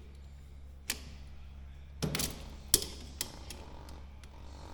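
A few sharp clicks and knocks of metal hand work on an aircraft's undercarriage leg while a tightly stretched bungee cord is being fitted, the loudest a little under three seconds in, over a steady low hum.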